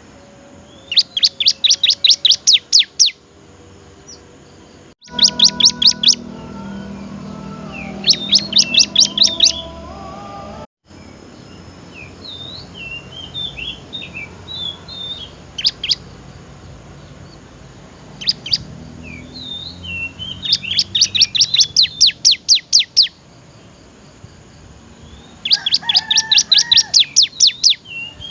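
Bar-winged prinia (ciblek) singing: several bursts of fast, evenly repeated high notes, each lasting about two seconds, with softer scattered twitters in between.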